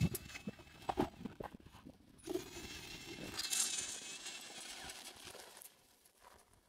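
Small tyres of a homemade three-wheeler rolling and crunching over loose gravel, with scattered small knocks and a thin wavering whine from the machine. It fades near the end.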